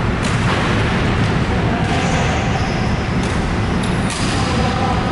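Steady low rumble of a badminton hall's background noise, with a few sharp clicks of rackets striking shuttlecocks scattered through it.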